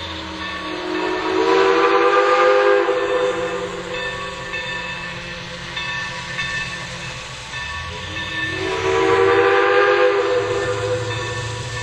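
Steam locomotive whistle blown in two long blasts, each sliding up in pitch as it opens, the first about a second in and the second from about eight seconds in. A steady low rumble of the train runs underneath.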